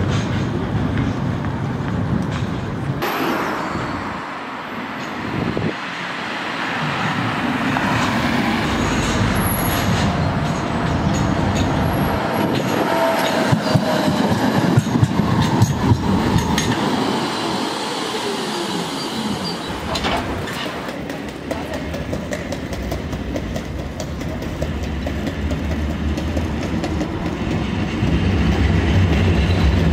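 Electric city trams on street track: a low-floor articulated tram passes close by, its wheels clicking over rail joints, with a short falling whine in the middle. Near the end a low hum grows as another tram approaches.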